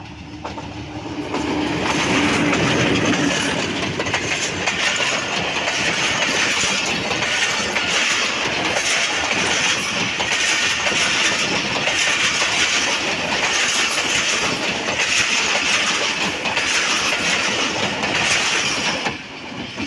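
Pakistan Railways HBU-20 diesel-electric locomotive passing close by, hauling a passenger train. The sound swells over the first two seconds with the engine's low note, then the coaches run past with a steady rumble and a regular clickety-clack of wheels over rail joints. It drops off suddenly near the end as the last coach goes by.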